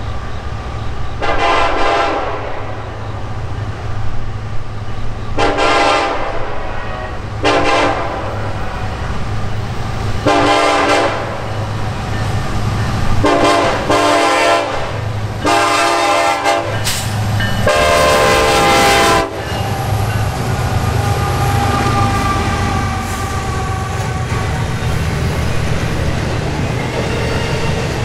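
Norfolk Southern EMD SD70ACE diesel-electric locomotive sounding its air horn in the grade-crossing pattern, long, long, short, long, followed by a second series of blasts, over the steady low rumble of its engine. The horn cuts off about two-thirds of the way through, leaving the rumble and rolling wheel noise of the double-stack intermodal cars.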